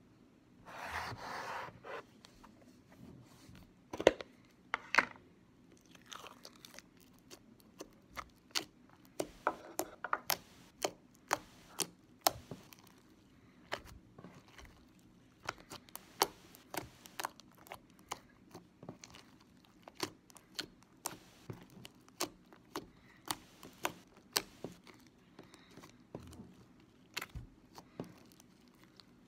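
Pink glitter slime being kneaded and poked by hand, giving a run of sharp, irregular wet clicks and pops as air pockets in the slime burst. A short rustling noise comes about a second in.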